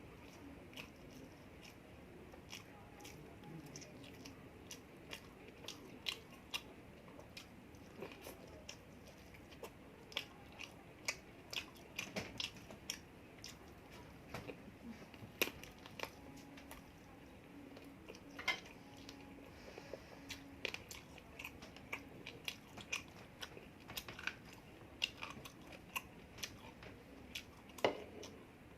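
Close-miked eating sounds: someone chewing and biting spicy chicken roast and pulao rice, with irregular wet clicks and smacks of the mouth. A few louder smacks stand out, one about halfway through and one near the end.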